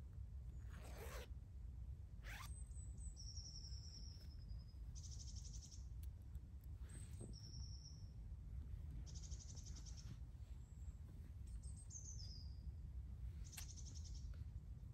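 Faint woodland birdsong: a short high rattling trill repeated about every four seconds, and thin high whistles, some falling in pitch, over a steady low rumble of outdoor background. A few brief swishes of clothing being handled come in between.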